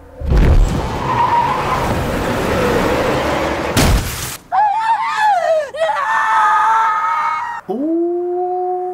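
Movie soundtrack of a vehicle crash: a loud rushing, skidding noise for about four seconds, ending in a sharp smash. A person then screams and wails in a high voice, and gives a long held 'ooh' near the end.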